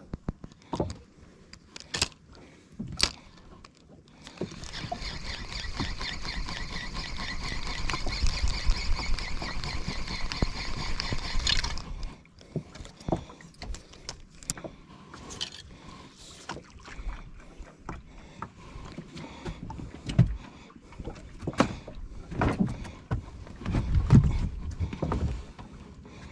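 Spinning reel being cranked fast, its gears whirring steadily for about seven seconds before stopping abruptly. Scattered clicks and knocks of the tackle being handled follow, with a few low thumps near the end.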